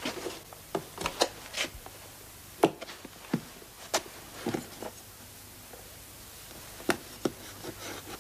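Scattered light knocks and clicks of objects being handled in a small room, irregular, with the clearest ones about a third and halfway through and again near the end.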